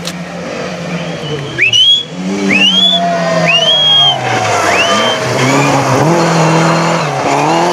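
Ford Escort Mk2 rally car at full throttle, its engine note rising sharply four times in quick succession. It then passes close by with a rush of tyre noise on the wet tarmac under a steady engine note.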